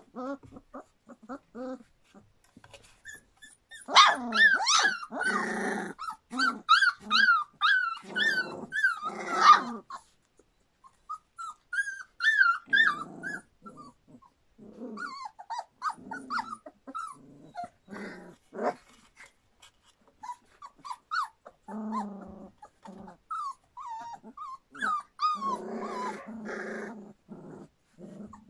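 Three-week-old Standard Poodle puppies squealing and whimpering in quick high-pitched runs, mixed with short low growls as they play. The busiest run of squeals starts about four seconds in and lasts several seconds, with more growling near the end.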